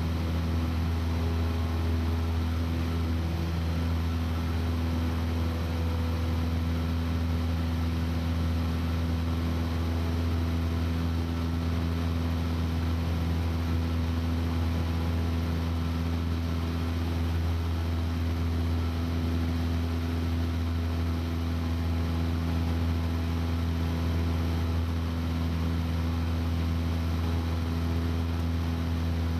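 Aircraft cabin noise: a steady, unchanging engine drone with a deep hum and several steady tones above it.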